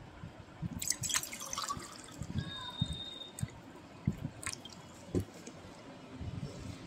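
Water poured into a stainless steel tumbler, splashing and dripping, with a few light knocks.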